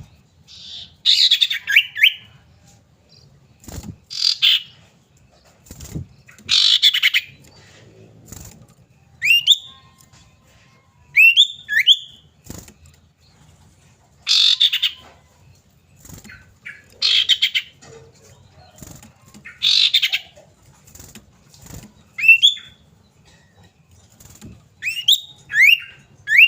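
Common iora (cipoh) calling: harsh, raspy chattering bursts alternate every few seconds with short upward-sweeping whistles, often in pairs or threes. It is a lure call used to set caged irora to calling and singing.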